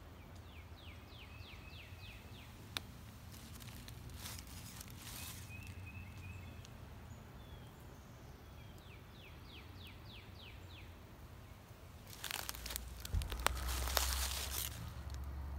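Dry fallen leaves rustling and crunching as a hand pushes into them, loudest near the end. A small bird sings a quick series of falling notes twice in the background.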